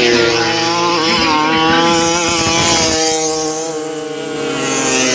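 Racing scooter engines running at high revs in a steady, buzzing whine. In the second half a second engine's pitch climbs as it speeds up.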